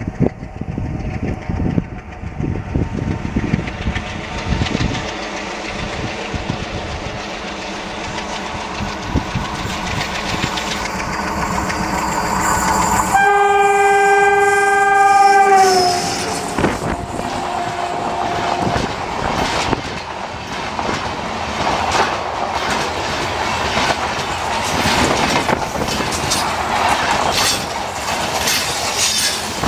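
Diesel train with an ALCo WDM3A locomotive: the engine rumbles as it runs, then its horn sounds one long note about 13 s in that drops in pitch near 16 s and carries on lower and fainter for a few more seconds. After that, steady clickety-clack of the coaches' wheels passing close at speed.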